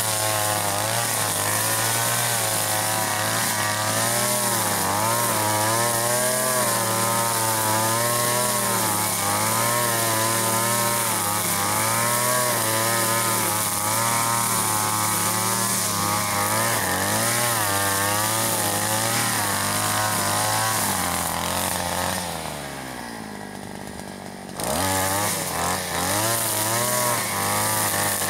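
Two-stroke petrol chainsaw cutting wood, its engine pitch wavering under load. Near the end it drops back toward idle for about two seconds, then revs up again and carries on cutting.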